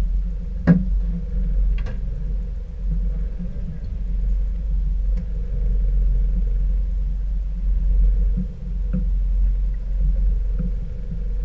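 Steady low rumble from the fishing boat on the water, with a sharp click less than a second in and a few lighter ticks after it.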